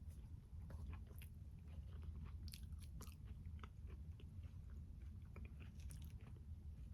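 A person chewing and biting a tomato, peach and basil salad: many short, soft mouth clicks over a faint steady low hum.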